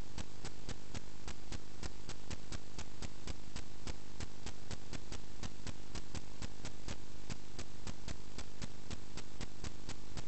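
Sewer scope camera rig running: a steady hum with a rapid, even ticking, about five or six ticks a second.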